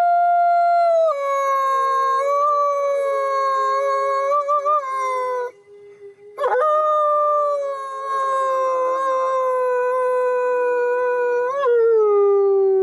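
A man howling like a wolf: two long, held howls. The first drops in pitch about a second in and wavers near its end. The second starts about a second after the first stops and slowly falls in pitch.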